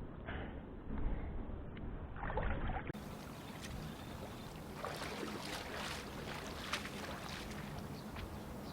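Water lapping and splashing with wind noise on the microphone. About three seconds in the sound changes abruptly and turns brighter, with many small irregular splashes and knocks.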